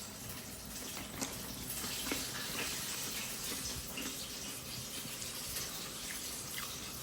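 Steady rushing background noise with a few faint clicks and light knocks.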